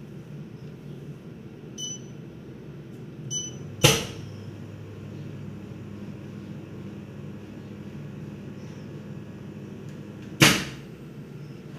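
COF bonding machine at work: a steady machine hum, two short electronic beeps, then two loud sharp clacks with a brief hiss about six and a half seconds apart, typical of the bonding head's pneumatic press actuating.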